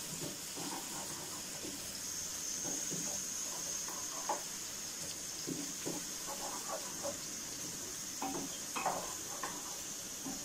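Chopped onion sizzling steadily in hot cooking oil while it is lightly sautéed. A wooden spoon stirring it in the metal pot gives scattered soft scrapes and knocks.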